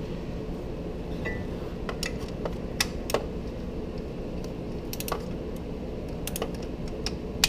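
Scattered metallic clinks and clicks of hand tools and bolts against the exhaust manifold's heat shield as the shield is bolted back on, at irregular moments over a steady low hum.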